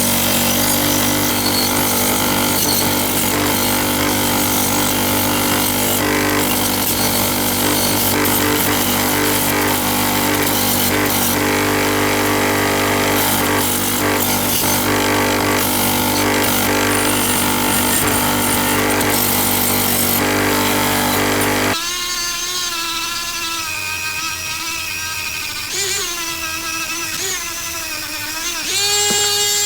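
Power tool running steadily with a loud, harsh hiss over a low hum for about twenty seconds. Then a cut to a smaller-sounding motor whose pitch wavers and rises sharply near the end.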